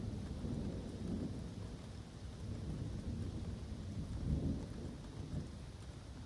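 Thunderstorm in woodland: a continuous low rumble of thunder that swells and fades, over the steady hiss of falling rain.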